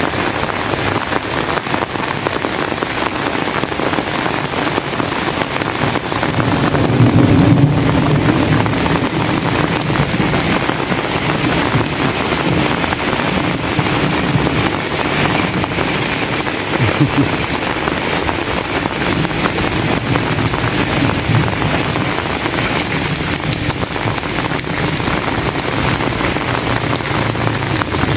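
Heavy rain falling steadily, a dense even hiss, with a low rumble that swells about six seconds in and comes and goes after.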